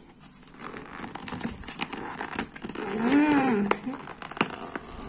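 A cardboard mailer being torn open along its perforated tear strip: cardboard crackling and tearing, with many short sharp clicks. A little after three seconds in, a brief hummed voice sound rises and falls, the loudest moment.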